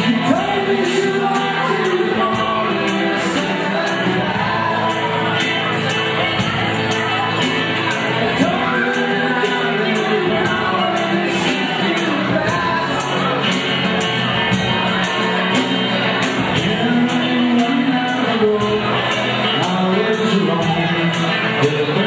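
Live MPB band playing a relaxed song: a singer over acoustic guitar and drums, with a steady high ticking beat about two to three times a second.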